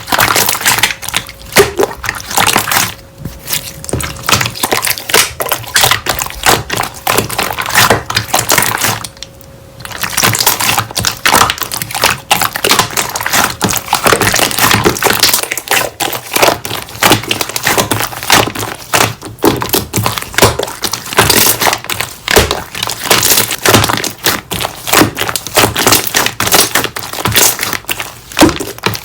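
Slime being squeezed, poked and folded by hand, giving a dense, loud crackle of small clicks and pops, with a brief pause about a third of the way in.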